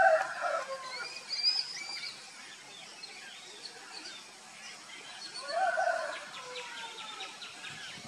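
Birds calling outdoors: two louder pitched calls, one right at the start and one about five and a half seconds in, over scattered high chirps and twitters of small birds.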